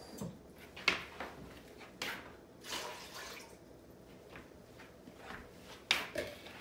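Water poured from a plastic container into a cooking pot on the stove, splashing briefly, with a few sharp knocks and clicks as the container and pot are handled.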